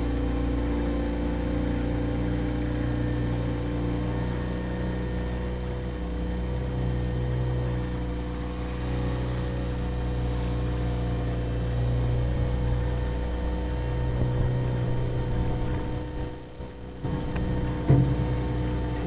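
Bobcat 642 skid-steer loader's engine running steadily as it works the pile, heard from across the yard. Its note swells and eases with the load. It drops away briefly near the end, then comes a single sharp knock.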